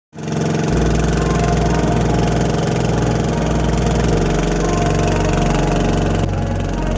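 Engine of a small wooden motorboat running steadily, starting abruptly right at the beginning.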